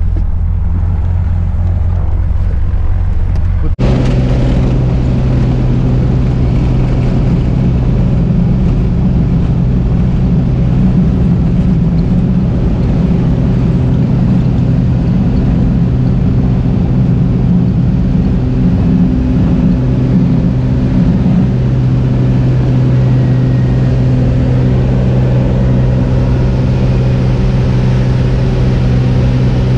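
Engine and propeller of a small single-engine jump plane running loud and steady, heard inside the cabin with wind noise, during the takeoff and climb-out. The drone changes abruptly to a steadier, higher note about four seconds in.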